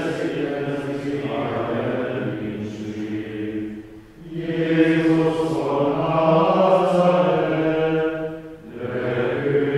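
Men's voices chanting plainchant of the Tenebrae office in unison, in long phrases on a reciting pitch. There is a short break for breath about four seconds in and another near the end, after which a new phrase begins.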